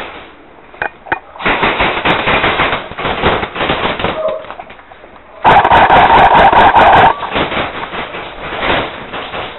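Airsoft electric guns firing in rapid full-auto strings: one long string of shots from about a second and a half in, then a much louder one from about halfway through that runs on.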